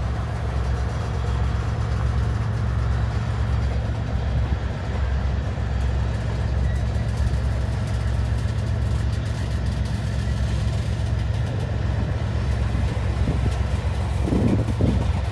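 Diesel freight locomotives idling: a steady low rumble, with a short stretch of louder irregular noise near the end.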